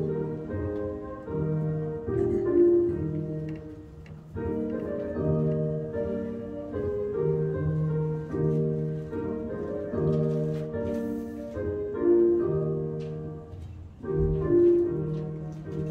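Keyboard music of sustained chords, played as the postlude closing a church service.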